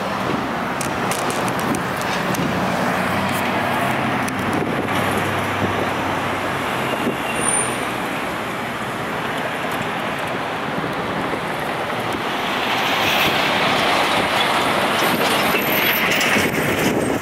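Road traffic driving past: steady tyre and engine noise from passing vehicles, growing louder about thirteen seconds in.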